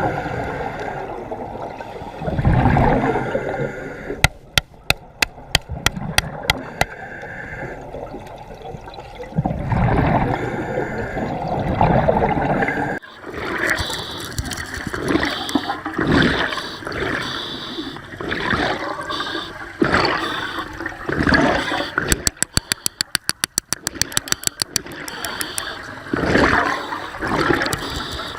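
Sea water sloshing and gurgling in swells every few seconds. Two runs of quick sharp clicks come in, about five seconds in and again about twenty-two seconds in.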